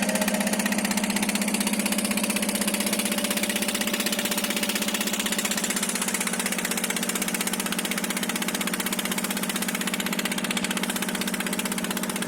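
An engine idling steadily, a low hum with a fast, even pulse over a background hiss.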